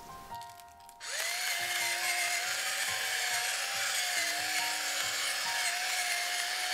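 Electric pepper grinder starting about a second in, its motor rising in pitch as it spins up, then running steadily as it grinds peppercorns.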